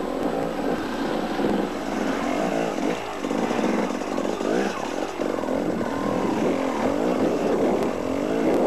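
Off-road enduro motorcycle engine heard from on board, revving up and down unevenly as the rider works the throttle, its pitch rising and falling again and again.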